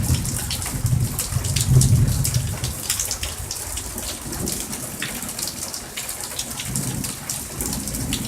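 Thunderstorm: steady rain with many close drips and splashes, and a low rumble of thunder in the first two seconds or so that fades, with a fainter rumble about seven seconds in.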